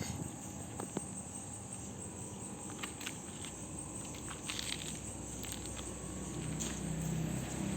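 Insects chirping faintly in the background, with a few light ticks. A low hum builds near the end.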